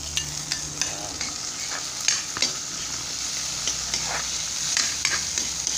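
Chopped tomatoes sizzling in hot oil in a metal wok with sautéed garlic, onion and ginger, stirred with a metal ladle that scrapes and clicks irregularly against the pan.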